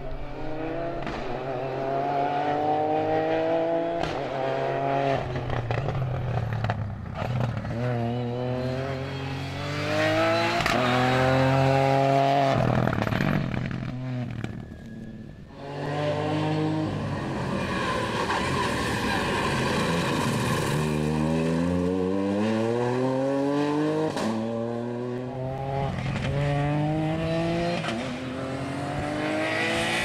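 Ford Fiesta rally car's engine pulling hard through the gears at full throttle, the pitch climbing and falling back at each upshift, several times in a row. The revs ease for a moment about halfway, then climb through the gears again.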